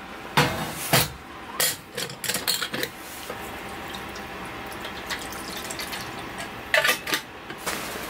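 Sharp metal clanks and clatter from a stainless steel camping kettle being handled. Then water is poured from a glass pitcher into the kettle, a steady running splash lasting a few seconds. Near the end come more metal clanks.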